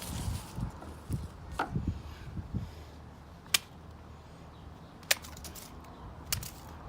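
Pocket knife blade slashing into a pineapple: four sharp, short chopping strikes spread across a few seconds, the one a little past halfway the loudest.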